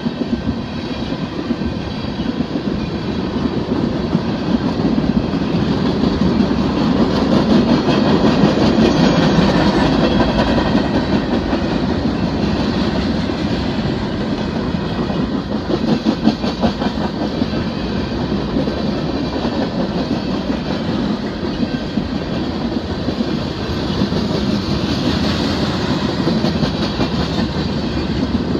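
Freight cars of a BNSF manifest train (tank cars and covered hoppers) rolling past close by: a steady rumble of steel wheels on rail with quick clicking over the joints. It is loudest a few seconds in.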